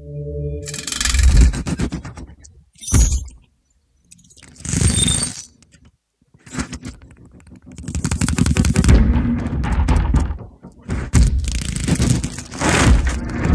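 Cinema sound-system demonstration trailer played over a big open-air cinema loudspeaker system, made of film sound effects. First come a few separate heavy whooshing impacts and crashes, one with a high ringing tone. About halfway through these build into a dense run of rumbling hits with deep bass.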